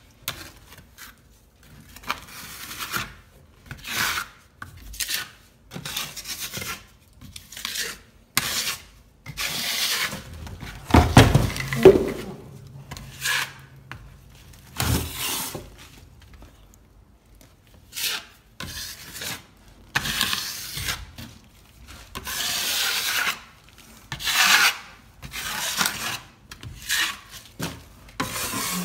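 Scraping and digging out loose plaster along a crack with a metal putty knife and a pointed tool. It comes as many short scraping strokes, with one louder thump about eleven seconds in.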